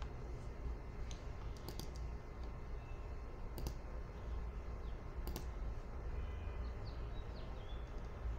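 A computer mouse clicking a handful of times at irregular intervals, with a quick cluster of three clicks near two seconds in, over a steady low hum.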